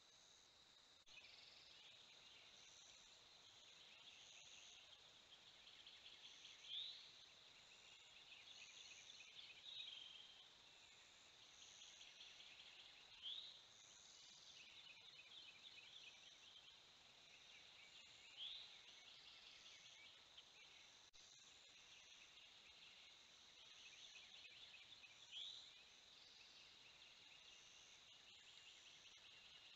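Faint dawn chorus of insects and birds. A steady high insect trill is joined about a second in by busy high-pitched bird chatter, and a short rising bird call comes every five to seven seconds.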